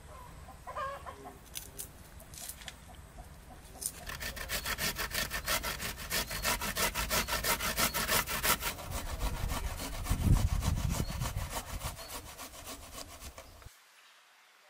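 Food being grated on a stainless-steel box grater: quick, even rasping strokes, a few a second. The strokes start about four seconds in and stop abruptly near the end.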